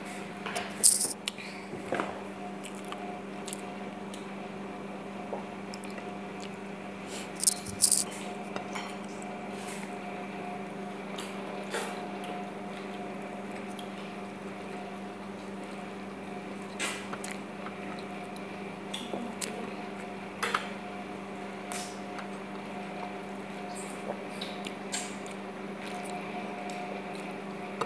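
Eating by hand: fingers squishing and mixing rice against a plate, with scattered small clicks and taps, the loudest about a second in and again about eight seconds in. A steady electrical hum runs underneath.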